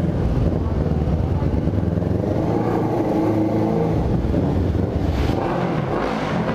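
A 1998 Honda CB500's parallel-twin engine running steadily while the motorcycle is ridden, with a short rush of noise about five seconds in.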